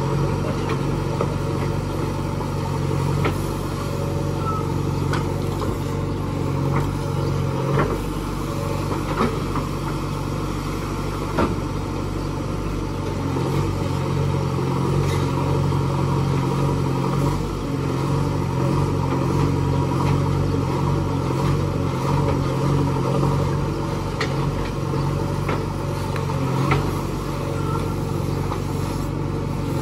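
JCB 3DX backhoe loader's four-cylinder diesel engine running steadily under load while the backhoe digs, with a few sharp knocks from the bucket and arm working in stony soil.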